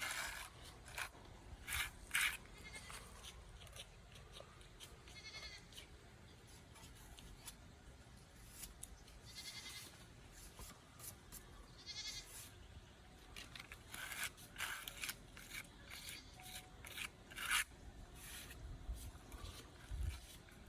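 Three quavering animal calls, about five, ten and twelve seconds in, over repeated short rasping sounds.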